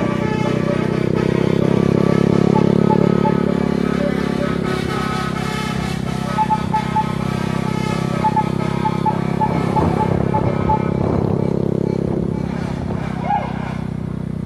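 Road vehicle engine running steadily with road noise, as heard while travelling in traffic. Between about 6 and 11 seconds in, a string of short, high beeps repeats.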